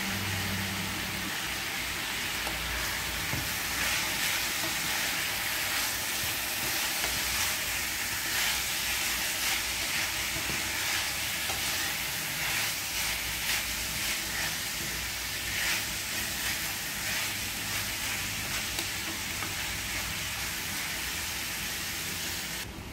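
Pork cubes and onions sizzling as they fry in a non-stick pan, with a wooden spatula stirring and scraping through them over and over. The sizzling cuts off suddenly just before the end.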